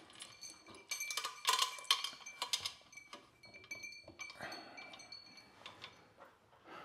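Crystal prisms of a round crystal chandelier clinking and ringing against one another as the fixture hangs and sways on its chain, a dense cluster of clinks about one to three seconds in and scattered ones after.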